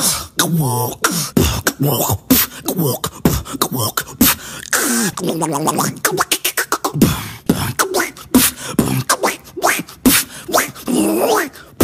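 A beatboxer making sound effects with mouth and voice: rapid clicks and pops mixed with sliding, wavering pitched vocal tones.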